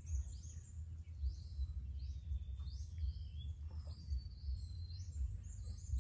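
Small birds chirping and whistling: a run of short, high chirps with a few longer falling whistles, over a low, uneven rumbling background noise.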